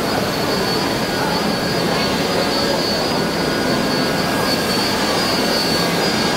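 Steady hiss of steam venting from NSW 32 class steam locomotive 3265 standing at the platform, with a thin high tone running through it.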